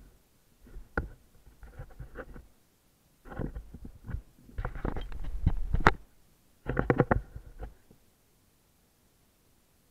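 Handling noise on a fishing kayak: irregular bursts of rustling with bumps and sharp clicks as a pollock is brought aboard and unhooked. The noise stops about eight seconds in.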